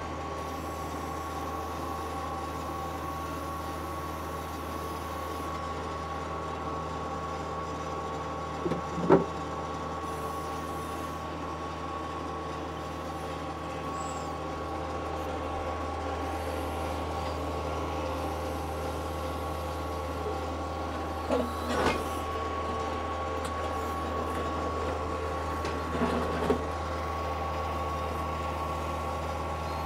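Yanmar compact tractor's diesel engine and backhoe hydraulics running steadily, with a steady high whine over the engine's hum. Three times, about a third, two thirds and seven eighths of the way through, the backhoe bucket clunks against rocks in a quick pair of knocks.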